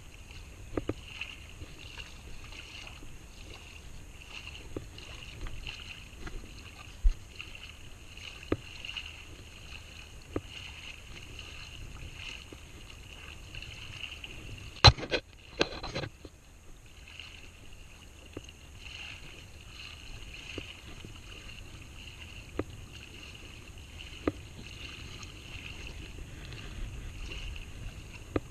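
Shallow seawater sloshing and lapping around a wader, steady throughout, with scattered light clicks and knocks from the handled fishing gear; a short cluster of louder knocks comes about halfway through.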